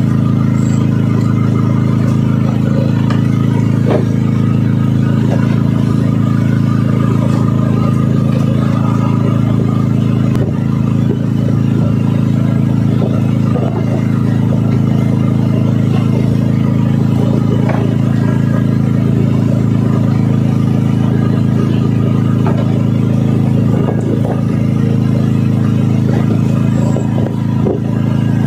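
An engine on the fishing boat running steadily, a constant low drone.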